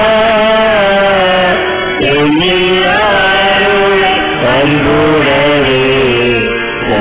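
Devotional church hymn: a single voice singing a slow, sliding, ornamented melody in phrases over a steady low drone accompaniment.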